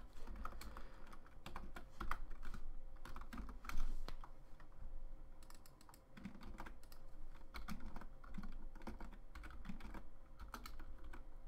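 Typing on a computer keyboard: irregular key clicks, with one louder key strike a little before four seconds in and a short lull about six seconds in.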